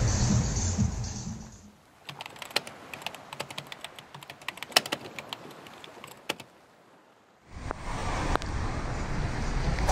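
Keyboard-typing sound effect: a quick, irregular run of clicks lasting a few seconds, after electronic music fades out in the first two seconds. Street noise with traffic comes in near the end.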